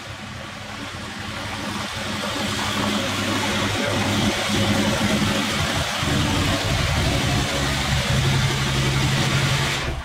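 Ram 2500 pickup's Cummins straight-six turbo diesel running at low speed as the truck backs up, growing louder over the first few seconds as it nears and then holding steady.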